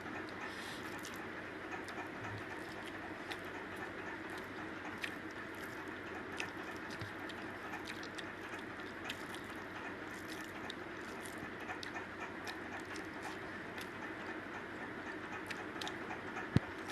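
Eating sounds: scattered small clicks and smacks of eating rice by hand over a steady background hiss, with one sharp click near the end.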